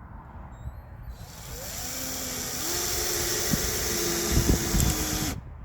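Power drill driving a screw into wood: the motor spins up about a second in, rising in pitch to a steady whine, then cuts off suddenly near the end.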